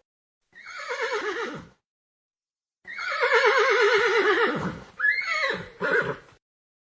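Horse whinnying. A short call falls in pitch, then comes a long, quavering whinny that drops away, followed by two short calls near the end.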